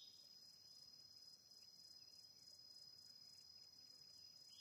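Near silence, with a faint high-pitched chirring that pulses rapidly and evenly.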